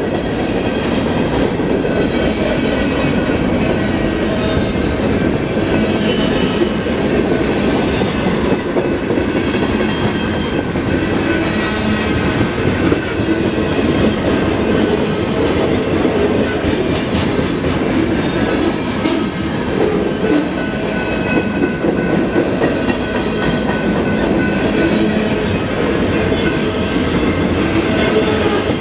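Union Pacific mixed freight train's cars rolling steadily past at a grade crossing, their wheels clacking over the rail joints, with faint steady high ringing tones above the rumble.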